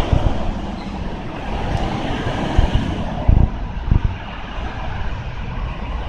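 Steady road traffic noise from a busy road close by, with a few low thuds on the microphone between about two and a half and four seconds in.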